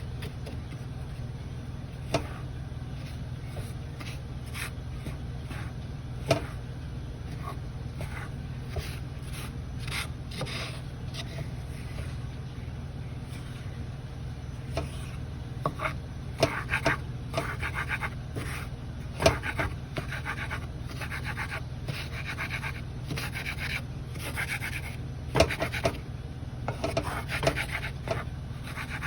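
Knife chopping bell pepper and onion on a cutting board: scattered knocks and scrapes, sparse at first and coming in quick clusters in the second half, over a steady low hum.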